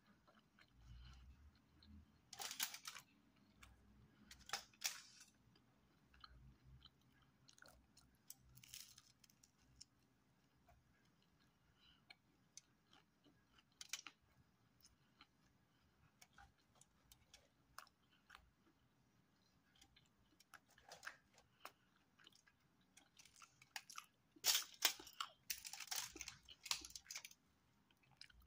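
Person eating pizza close to the microphone: soft chewing broken by short crunches from the crust, which come thickest and loudest near the end.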